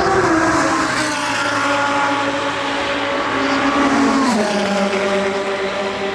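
IMSA sports-prototype or GT race car engine at high revs. Its pitch falls in steps, dropping over the first second and then sharply again about four seconds in, before holding steady.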